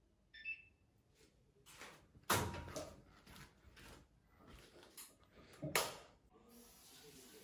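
A washing machine's control panel beeps once as a button is pressed. Then come two loud knocks about three seconds apart, with rustling between them, and a steady low hiss starts near the end.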